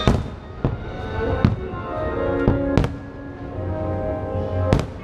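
Fireworks show: about six sharp firework bangs over music, the loudest near the start, twice in the middle and near the end.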